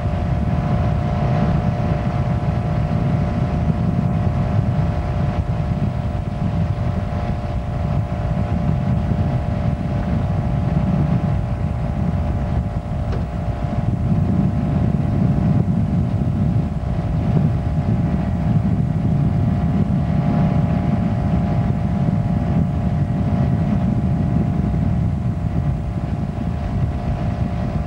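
Tow boat's engine running steadily at speed while pulling water-skiers, with the rush of the wake and wind buffeting the microphone.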